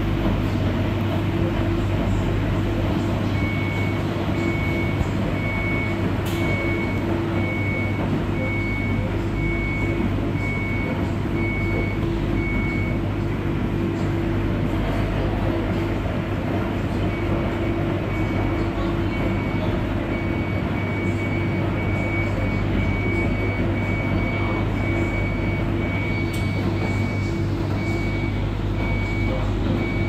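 Electrolux Professional WN6-14 front-loading washing machine in its rinse, the drum tumbling a load through water: a steady motor hum with water sloshing. A faint high electronic beep repeats about every 0.8 seconds through most of it, stopping for a few seconds near the middle.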